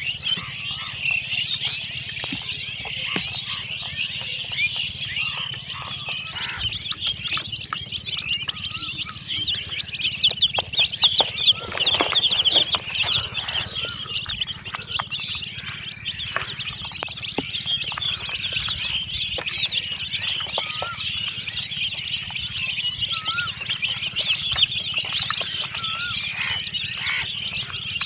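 A flock of baby chickens peeping, with many high, rapid chirps overlapping without a break. It grows louder for a few seconds around the middle.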